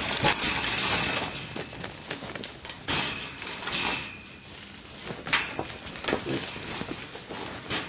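Trapped wild boars scrambling inside a wire-mesh cage trap: hooves scuffing and scattering dry dirt in irregular rushes, with sharp knocks and rattles as they strike the mesh, more of them in the last few seconds.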